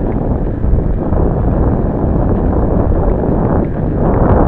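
Wind buffeting the microphone of a sunglasses-mounted camcorder while cycling: a loud, steady noise.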